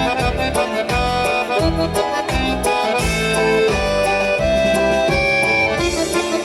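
Instrumental break of a Russian folk-style song: accordion playing the melody over a steady pulsing bass beat.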